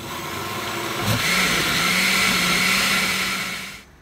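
Countertop blender blending liquid flan batter. The motor gets louder about a second in and runs steadily, then is switched off shortly before the end.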